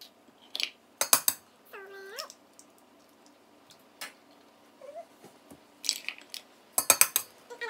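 Eggs being cracked and separated over a stainless steel bowl: sharp clicks and knocks of shell on the metal rim, loudest about a second in and again near the end. A brief high-pitched wavering vocal sound comes about two seconds in.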